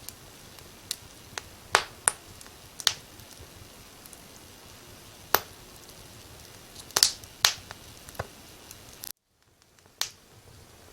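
Wood fire crackling: sharp pops and snaps at irregular intervals over a soft steady hiss. About nine seconds in, the sound cuts out for under a second, then the crackling resumes.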